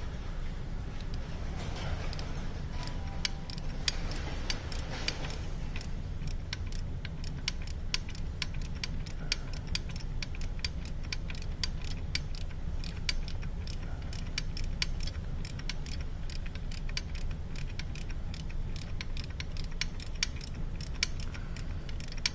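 Flex-head ratchet with a 22 mm deep socket clicking in a steady run as it backs the reverse light switch out of a VW 02J manual transmission case; the switch threads are held by locking compound, so it turns stiffly.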